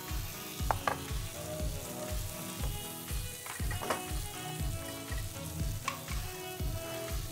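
Shrimp sizzling in butter in a frying pan, with a few sharp clicks, over background music with a steady beat.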